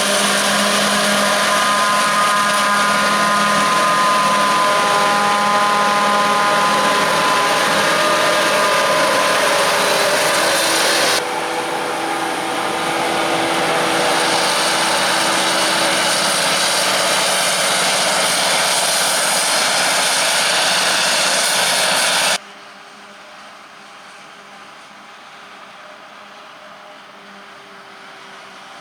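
Maize-harvest machinery running steadily: the forage harvester and tractors. For the first stretch there are several steady whining tones over the engine noise. The sound changes abruptly about eleven seconds in, and again after about twenty-two seconds, where it drops to a much quieter, more distant machine rumble.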